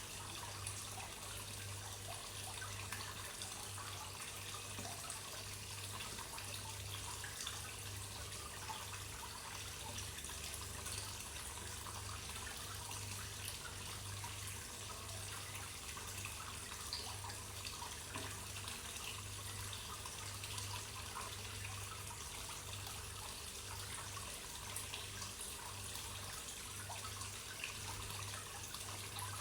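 Water trickling and splashing steadily into a koi pond, with a low hum that pulses on and off underneath.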